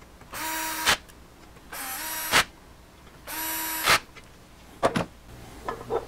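Cordless drill/driver run in three short bursts of about half a second each, turning a screw in the upper-arm blade-clamp bracket of a DeWalt 788 scroll saw; each burst stops with a sharp click, and a few light clicks follow near the end.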